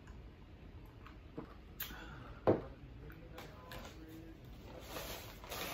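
Close-up eating mouth sounds, chewing and swallowing food, with small wet clicks and a crunchier patch near the end. A single sharp knock about two and a half seconds in is the loudest sound.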